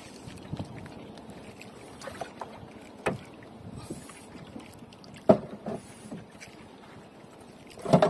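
Small moored boat rocking on the water, with water lapping against the hull and a few sharp knocks, about three seconds in, five seconds in and near the end.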